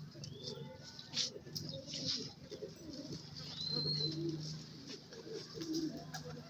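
Domestic pigeons cooing, a string of low hums one after another. A short, high chirp rises and falls a little past the middle, with a few light clicks.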